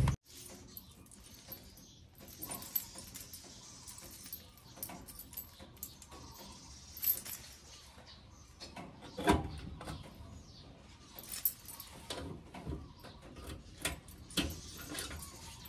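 A bunch of keys jangling, with irregular light metallic clicks and clinks against a coin-operated washing machine's metal coin box as its lock is worked open.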